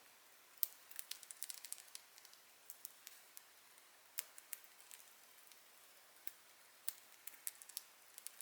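Budgies biting and chewing seagrass with their beaks: faint, irregular sharp clicks and crunches, bunched most thickly about a second in.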